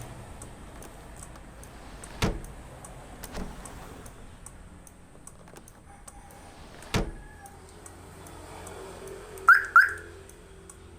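Two sharp clunks about five seconds apart from the door lock actuators of an aftermarket central-locking and car alarm system, then near the end two quick chirps from the alarm siren.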